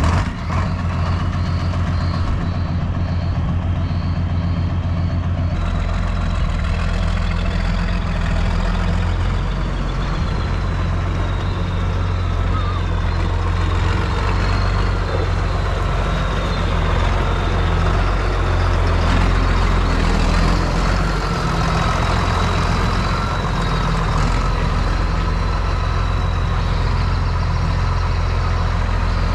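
Diesel tractor engine running steadily as it tows a cattle trailer across the yard, with a thin high whine held over the engine note.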